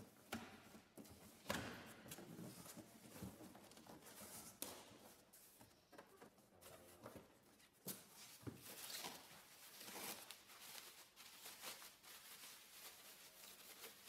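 Faint rustling of plastic wrapping and cardboard packaging as a boxed bike part is unpacked, with a few scattered knocks and taps.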